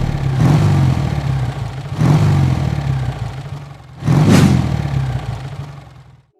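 Motor vehicle engine running and revving up in three surges about two seconds apart, each dying back down, before cutting off abruptly near the end.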